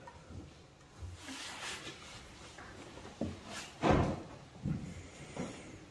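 A few scattered knocks and thumps with some rustling; the loudest knock comes about four seconds in.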